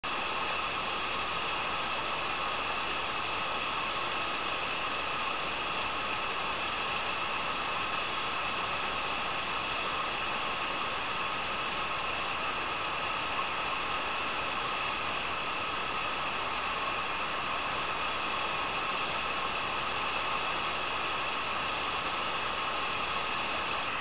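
Waterfall and stream water rushing and splashing over rocks: one even, unbroken noise.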